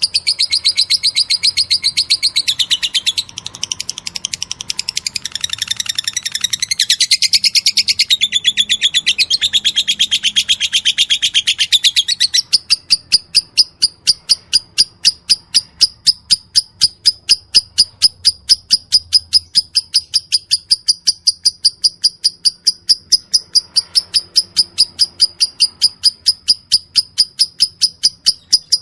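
Lovebird singing in the rapid 'ngetik' (typing) style: a long unbroken string of sharp, high chirps. For the first dozen seconds it is a dense, varied chatter. Then it settles into an even run of identical ticks, about five a second.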